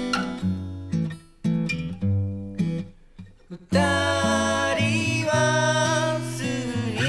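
Background music: strummed acoustic guitar, stop-start with brief pauses, then about four seconds in a voice begins singing over the guitar.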